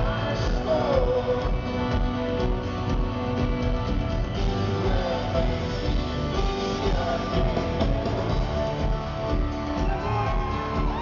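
Live folk-rock band playing: strummed acoustic guitar and electric guitar over a steady kick-drum beat, heard from the audience.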